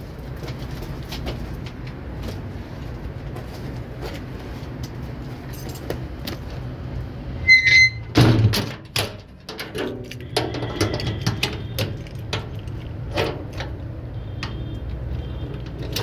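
Scattered knocks, clicks and rattles from a bicycle being handled, over a steady low hum. A single short electronic beep sounds about halfway through, and the loudest knocks come just after it.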